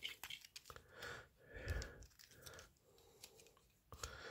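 Faint scattered clicks and scrapes of small plastic toy parts, a Transformers figure being handled and pried apart with fingernails, with a few soft swells of handling noise.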